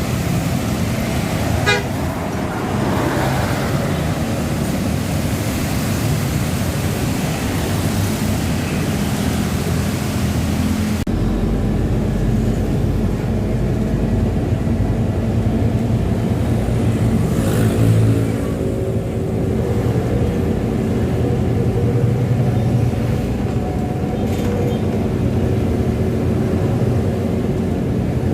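Road traffic with buses and cars, engines running, and a vehicle horn tooting briefly. Partway through, the sound cuts to a steadier low engine hum, as of a bus running close by.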